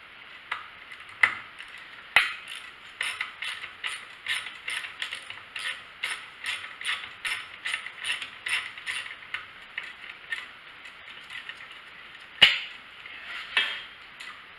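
Socket ratchet wrench clicking steadily as a coil mounting bolt is turned out, about two to three clicks a second for several seconds. A single sharper knock of metal on metal comes near the end.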